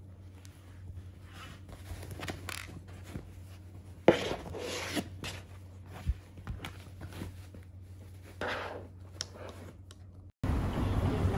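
Toy poodle pawing and rummaging in its fleece dog bed, its plastic cone collar rubbing and scraping against the fabric: a string of irregular scratchy strokes with one sharp knock about four seconds in. About ten seconds in the sound cuts abruptly to louder wind noise.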